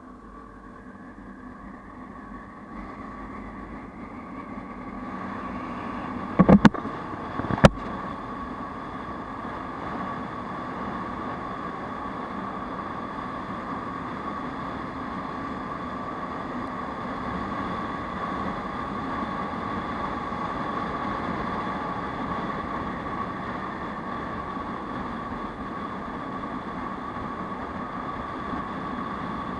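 Aprilia SR 150 scooter's single-cylinder engine running under way, with road and wind noise, getting louder over the first several seconds as it picks up speed and then steady. Two sharp knocks a little over a second apart about six seconds in.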